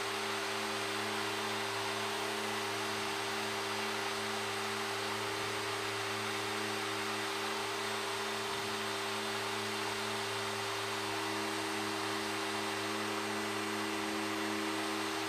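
Steady cockpit drone of a Fairchild Metro (SA227) twin turboprop in cruise, from its Garrett TPE331 engines and propellers: a low hum made of a few steady tones over an even hiss, holding level throughout.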